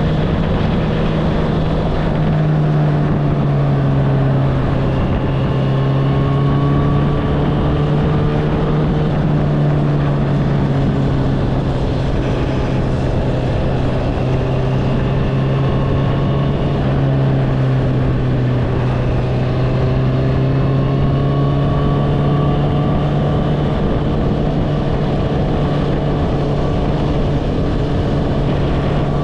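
Honda CBR650R inline-four engine with an Akrapovič exhaust, running at a steady cruising speed. Its note dips slightly about two seconds in, holds nearly constant, and rises a little near the end.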